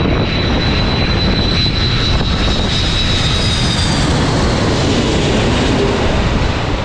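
Landing airliner passing low overhead on final approach, its engines making a loud, steady rush with a high whine that fades out about four seconds in.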